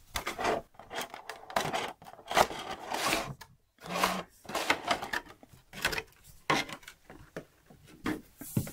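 Clear plastic blister tray and the plastic bag around a small figure crinkling and rubbing as hands handle them, in irregular bursts with a brief pause partway through.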